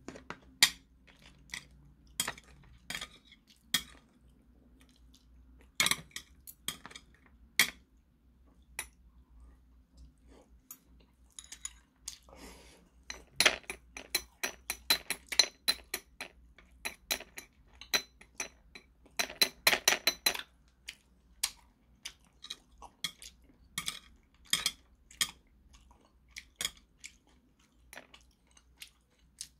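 Metal chopsticks clicking and scraping against a plate while picking the flesh off a grilled hairtail's bones: scattered sharp clinks, with two busier flurries in the middle.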